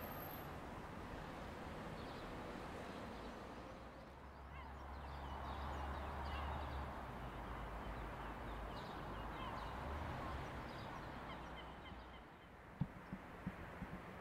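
Outdoor town ambience: a steady low rumble under a soft hiss, with faint, scattered bird chirps, and a few short low thumps near the end.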